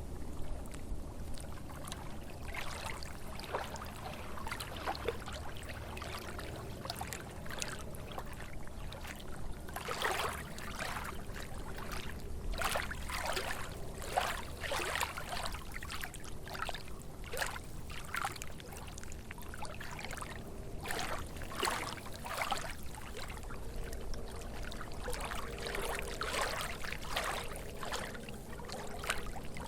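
Small lake waves lapping and splashing at the shore, in irregular splashes a second or two apart over a steady low rumble.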